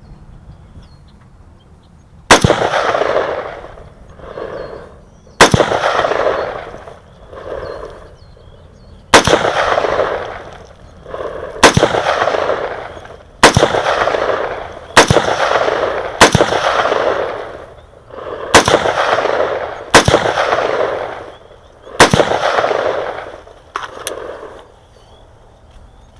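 Del-ton AR-15 rifle in 5.56/.223 firing single aimed shots, about eleven of them at an uneven pace of one every two to three seconds. Each sharp report is followed by a rolling echo that fades over a second or two.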